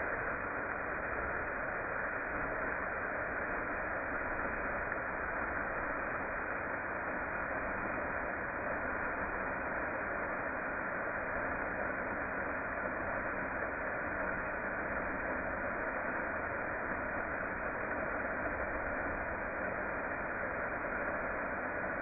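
Steady rushing of a waterfall cascading down a rock face.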